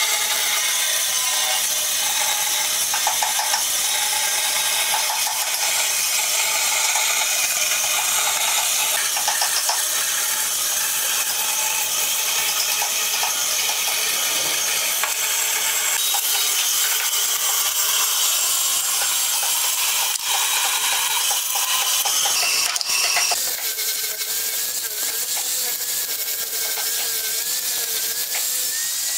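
Bandsaw blade cutting through pine boards along a curve: a steady rasping whir as the wood is fed through. Near the end it changes to a steadier machine whine with a slightly wavering pitch, from an angle grinder.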